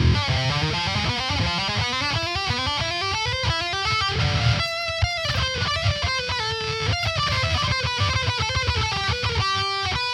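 Electric guitar playing a metal riff: fast low picking under a climbing run of notes, then held lead notes over the low rhythm.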